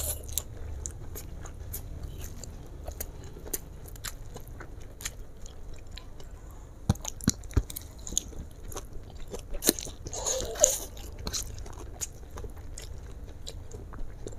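Close-up chewing of a mouthful of fried flat rice noodles: many small wet mouth clicks and smacks, busier and louder around ten seconds in, with a couple of low knocks about seven seconds in.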